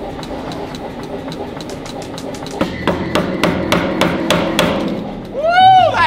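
Anyang self-contained air power hammer running, its ram striking in a steady series of sharp blows at about three a second. Near the end a person gives a loud whooping call that rises and falls in pitch.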